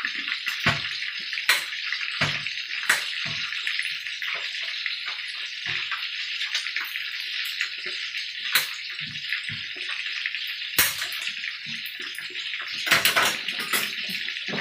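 Hot oil sizzling steadily around minced pork and shrimp balls deep-frying in a pan, with scattered sharp clicks and pops and a louder burst near the end.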